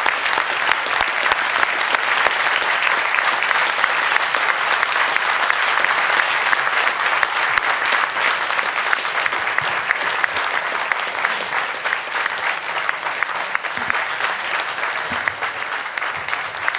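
Audience applause: many hands clapping in a steady, dense round that eases off slightly near the end.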